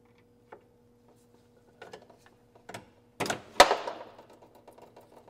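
A screwdriver tip clicks and scrapes against a plastic radiator drain plug as it is pried out. About three and a half seconds in there is a loud scrape and a sharp clack as the plug comes free, and coolant starts running out of the drain.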